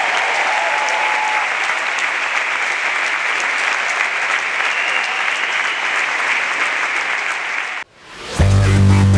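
A large seated audience applauding steadily. Near the end the applause cuts off suddenly and loud electronic music with a heavy bass comes in.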